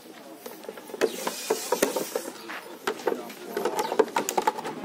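A Russell's viper hisses once, long and breathy, about a second in. Around it the clear plastic bottle crackles and clicks as it is pressed and shifted on the ground, more densely in the second half.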